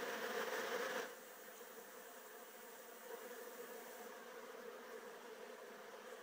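Honeybees buzzing at the hive entrance: the steady hum of many bees flying around the landing board, louder for about the first second and then settling to a quieter, even hum.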